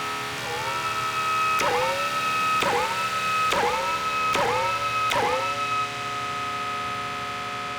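Modular synthesizer holding a steady, high sustained chord, with a run of about six plucked notes over it. The notes come roughly one a second, each starting with a click and swooping up in pitch, and they stop about six seconds in while the chord carries on.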